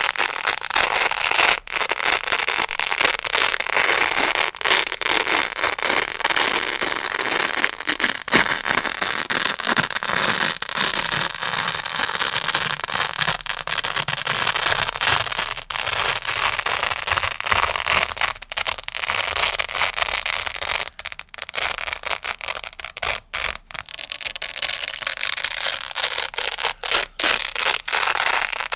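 A grey Velcro hook-and-loop pad crunching and ripping close to the microphone: a dense, scratchy crackle with a few brief breaks in the second half.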